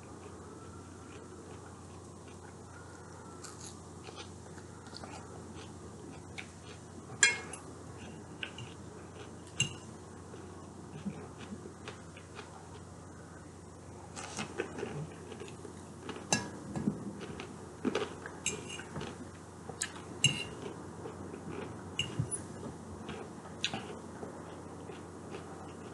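Eating a chicken Caesar salad: a fork clicking and scraping against the dish in scattered taps, with quiet chewing. The taps grow more frequent about halfway through.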